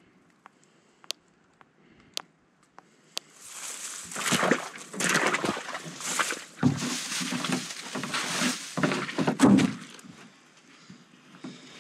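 Liquid sloshing and glugging as it is poured from a plastic jug into a steel bait barrel, in rough, uneven gushes with low thuds. It starts about three and a half seconds in and fades near the end. Before it come a few sharp, separate clicks.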